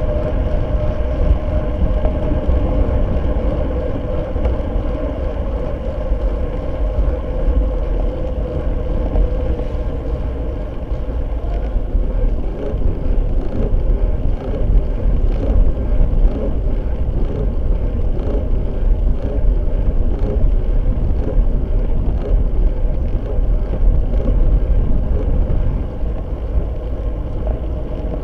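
Wind rush and road rumble picked up by a Fly6 camera-light mounted on a road bike riding at speed, with a steady hum that fades out after about ten seconds.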